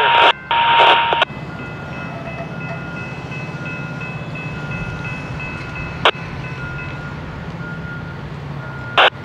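Train horn sounding two short blasts and a longer one over the first second. After that, a railroad grade-crossing warning bell keeps ringing while the gate arms rise, then stops around seven seconds in. Under it runs a steady low rumble, with two sharp knocks, one about six seconds in and one near the end.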